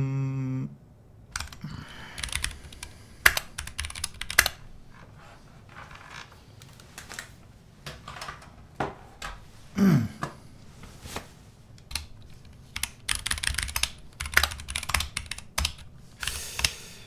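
Typing on a computer keyboard in short bursts of keystrokes with pauses between them.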